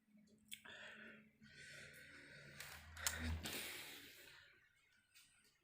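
A sleeping woman snoring: one long, noisy breath with a low rattle that swells to its loudest about three seconds in, then fades.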